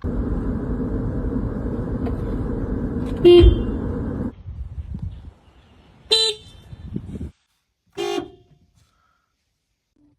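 Car horn: one long blast of about four seconds that cuts off suddenly, followed by two short toots a couple of seconds apart.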